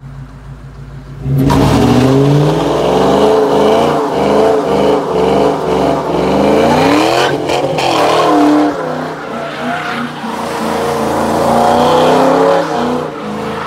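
Ford Mustang convertible doing a burnout into a donut. After about a second and a half of quieter running, the engine is revved hard and held high, its revs bouncing up and down, while the rear tyres spin and squeal.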